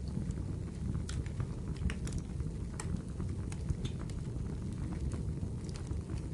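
Wood fire burning in a fireplace: a steady low rumble with irregular sharp crackles and pops throughout.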